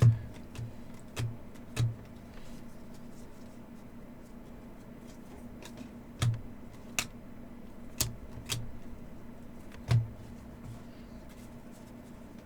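Hockey trading cards being handled at a table: scattered sharp taps and clicks as cards are flipped and set down, over a steady low hum.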